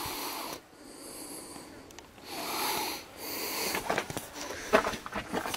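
A man breathing hard, three long, hissing breaths in and out, followed by a run of sharp clicks and scrapes near the end.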